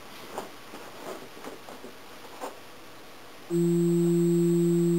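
A stove-pipe resonance tube driven by a speaker begins sounding a steady 171 Hz bass tone together with its 342 Hz harmonic. The tone comes in suddenly about three and a half seconds in and holds steady. 171 Hz is the tube's natural frequency, so the tube itself is resonating. Before that there is quiet room tone with a few faint clicks.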